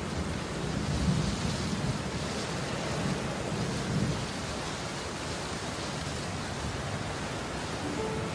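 Heavy rain falling steadily, with low thunder rumbling that swells twice, about a second in and again about four seconds in.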